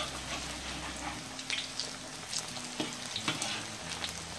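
Corn and shrimp fritters deep-frying in hot oil in a wok: a steady sizzle with scattered crackles, and clicks and scrapes of a metal spatula turning the fritters over.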